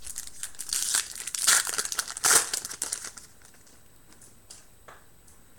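Foil wrapper of a football trading-card pack being torn open and crinkled, with two louder rips about one and a half and two and a half seconds in. The crinkling stops about three seconds in, leaving faint handling of the cards.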